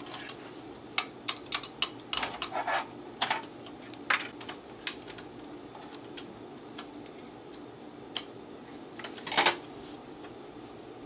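Clicks and short rattles of a floppy drive in its sheet-metal mounting bracket being handled as its ribbon cable is fitted. They come in scattered sharp clicks, busiest in the first few seconds, with one more cluster near the end.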